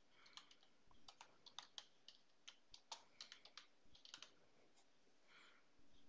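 Faint typing on a computer keyboard: a run of irregular key clicks that stops about four seconds in, followed by a faint steady hiss near the end.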